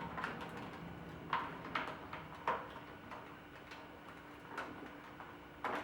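Scattered light clicks and taps of a wire and plastic parts being handled as the wire is fed through the ATV's plastic headlight bezel, over a faint steady hum.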